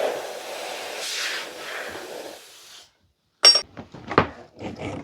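A steady hiss of compressed air blowing through a chainsaw bar for about three seconds, then cutting off. After a short break come several sharp clicks and knocks of the saw and tools being handled.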